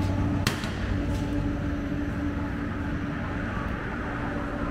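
A sharp click about half a second in, as the delivery flap of a retro vending machine swings shut once the foil-wrapped toast is pulled out, over a steady machine hum.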